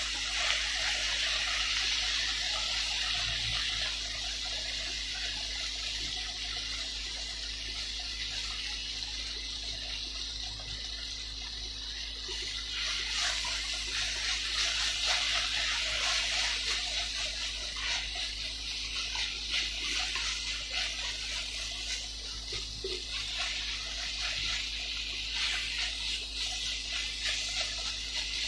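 Kimchi and pork belly sizzling steadily in a frying pan while being stirred, with wooden utensils scraping and tapping against the pan now and then.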